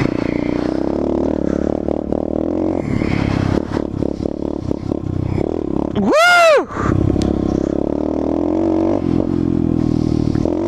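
Dirt bike engine running under varying throttle while riding, with rattling and scraping knocks. About six seconds in it revs sharply up and straight back down in a single quick blip.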